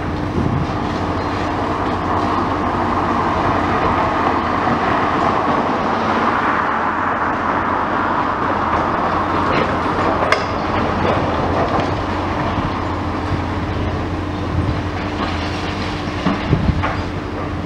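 Demolition excavator working: its diesel engine and hydraulics run with a steady low rumble and hum, over a steady grinding, scraping noise of the building being pulled apart. There is a sharp knock of falling debris about ten seconds in and a few more clunks near the end.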